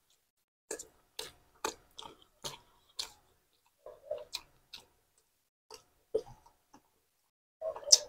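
Close-miked chewing of a mouthful of food: short wet mouth clicks and lip smacks, about two a second for the first couple of seconds, then more scattered.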